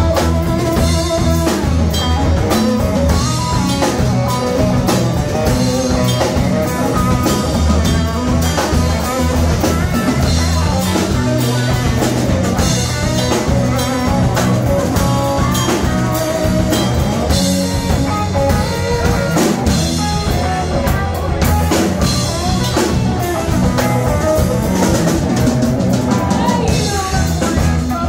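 Live rock band playing an instrumental passage: a lead electric guitar line over a drum kit and rhythm guitars, with no singing.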